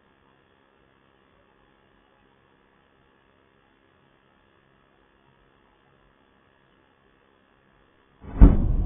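Faint steady electrical hum, then near the end a sudden loud explosion boom that rumbles and dies away over about a second.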